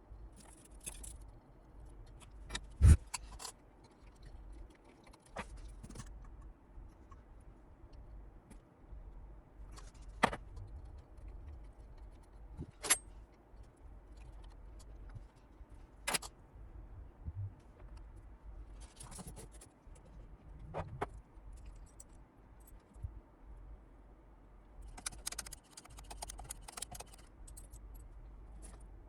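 Small tools and parts handled at a workbench: scattered clicks and taps with a few short, high rasping sounds. The loudest is a sharp knock about three seconds in.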